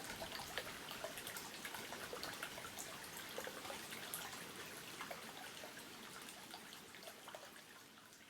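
Water trickling and dripping with many small splashes, fading out near the end.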